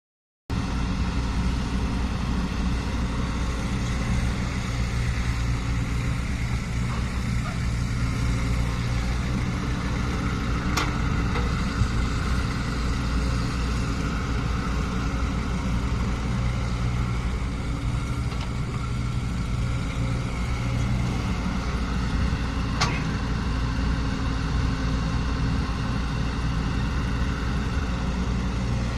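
Caterpillar 307E mini excavator's diesel engine running at a steady speed, with two sharp clicks, one near the middle and one later.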